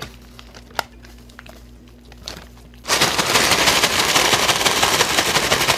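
McDonald's Shake Shake fries paper bag folded shut with faint rustling and one sharp click, then shaken hard from about three seconds in: a loud, dense, rapid paper rattle of fries tossing with the barbecue seasoning inside.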